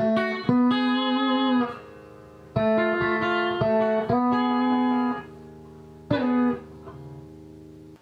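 2019 PRS Silver Sky electric guitar played through a Line 6 HX Effects multi-effects unit and a speaker: sustained notes and double-stops in three short phrases, with brief pauses between them.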